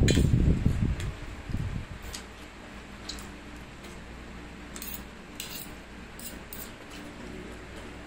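Spoon and fork clinking and scraping against a metal plate of rice while eating, a few light, scattered clicks. A louder, muffled low sound fills the first two seconds or so.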